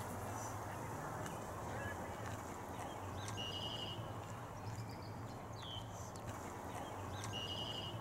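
Small birds calling over a steady low background rumble: a short trilled phrase twice, about three and a half and seven seconds in, with a quick downward chirp and a few faint chips between.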